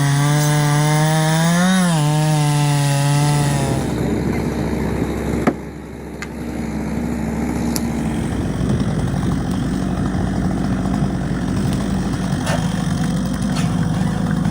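Chainsaw running at steady high revs, its pitch rising briefly about two seconds in. After a sudden break about five seconds in, a rougher, noisier engine-like running sound continues.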